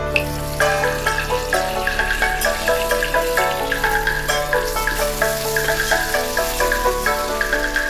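Bay leaves, garlic and ginger sizzling as they fry in hot oil in a pot, with a wooden spoon stirring them. Instrumental background music plays over it.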